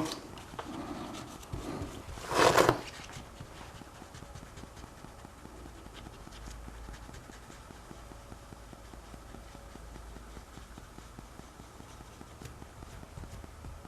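Paper towel rubbed over the glass edge of an iPhone 6 LCD to wipe off excess UV bonding glue. One louder swipe comes about two and a half seconds in, followed by faint rubbing and small ticks.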